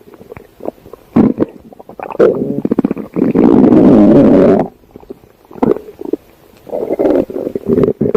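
A stomach growling: scattered short pops and rumbles, then a loud drawn-out growl lasting about a second and a half near the middle, followed by more short rumbles.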